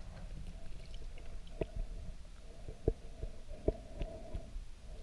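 Underwater sound through a submerged camera: a low rumble of moving water with scattered sharp clicks and knocks, and a faint hum that comes and goes.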